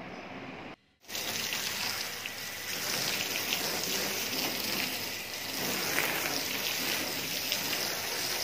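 Water from a garden hose spraying onto a car's body and windows: a steady hiss and splatter that starts suddenly about a second in, after a short break.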